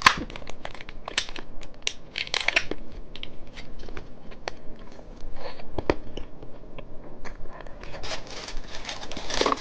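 Plastic candy packaging being handled, crinkling and rustling, with many sharp little clicks and taps.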